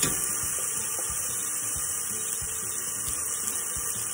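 Spiced curry paste sizzling in hot oil in a stainless steel pot, with a spoon scraping and knocking as the paste is spooned in.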